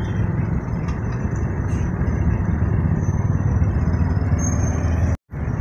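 Steady motor-traffic noise from motorcycles and cars moving slowly along a lane, with the sound cutting out for an instant near the end.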